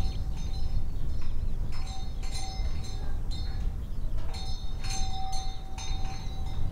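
Animal bells clinking and ringing in irregular groups of strikes, over a steady low rumble.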